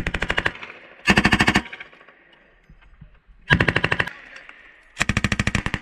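M249 light machine gun firing 5.56 mm rounds from its bipod in short, rapid bursts: four bursts of about half a second each, one to two and a half seconds apart. The last burst runs on to the end.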